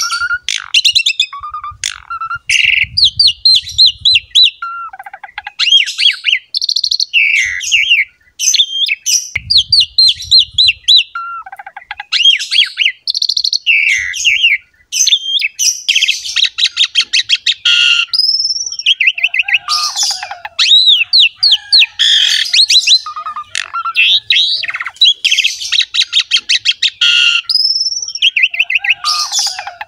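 Asian pied starling (jalak suren) singing without pause: a varied string of loud whistles, squeaky slurred notes and fast chattering rattles, the rattles densest in the second half.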